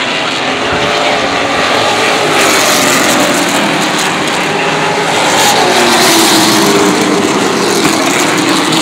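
Short-track stock cars running at racing speed on an asphalt oval, their engines growing louder to a peak about six seconds in as cars pass close by.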